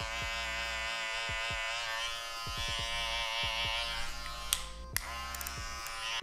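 Electric hair clipper buzzing steadily as it cuts hair; a couple of sharp clicks come about four and a half seconds in.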